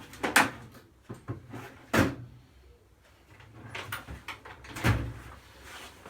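Knocks and clunks of objects being handled, with three loud ones about half a second, two seconds and five seconds in, and lighter taps between.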